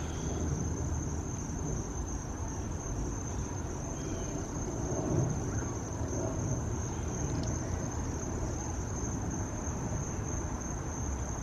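Crickets trilling in a continuous high-pitched chorus, one steady even tone, over low background noise.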